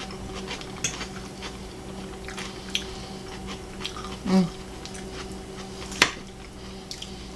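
Metal forks clinking and scraping against plates and bowls while eating: scattered light taps, with one sharper clink about six seconds in.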